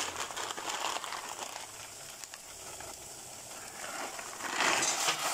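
Steady cooking hiss from water at a rolling boil in a saucepan and vegetables sizzling in a pan beside it. About four seconds in, a louder rustle as the plastic noodle packet is tipped and the noodle block drops into the boiling water.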